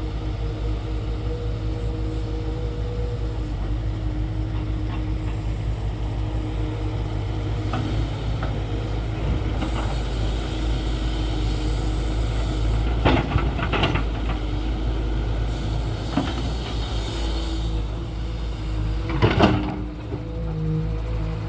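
Tata Hitachi 210 excavator's diesel engine running steadily under load. A few sharp knocks and clatters come through it, the loudest about halfway through and again near the end.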